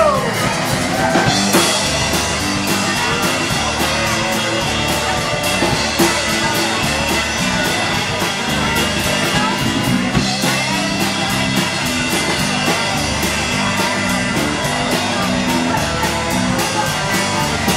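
Live rock band playing an instrumental break: electric guitar over a steady drum-kit beat, with no singing.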